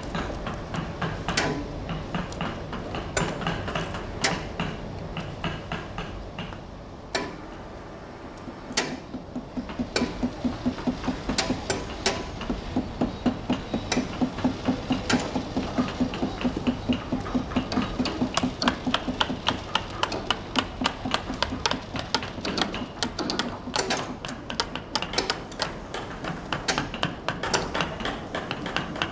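Mallet blows on wood-carving chisels cutting into wood: a series of sharp knocks, spaced out at first and then coming fast, several a second.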